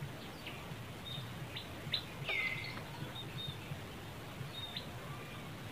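Scattered short, high chirps over a steady low background rumble, with one louder swooping call about two seconds in.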